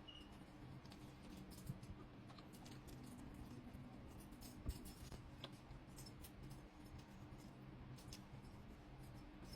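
Near silence: faint scattered clicks and ticks over a low steady hum, with one soft knock about four and a half seconds in.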